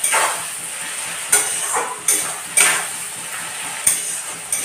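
Metal spatula scraping against a steel kadai, about six strokes, as sliced onions are stirred, over a steady sizzle of the onions frying in hot oil.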